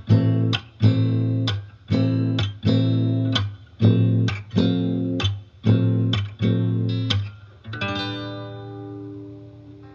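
Music: a guitar strumming chords in a steady rhythm, then one last chord left to ring and fade for about the final two seconds.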